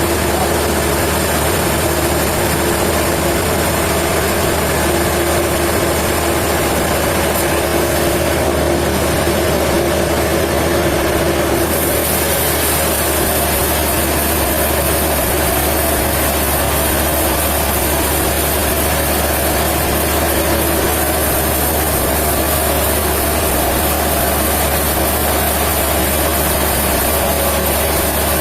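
Sawmill machinery running steadily, a continuous engine-like drone with no breaks. About twelve seconds in, the pitch of the hum shifts slightly and a high hiss comes in.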